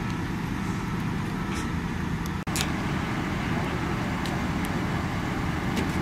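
Heavy earthmoving machine's diesel engine running steadily, with scattered short clicks and knocks. The sound cuts out for an instant about two and a half seconds in.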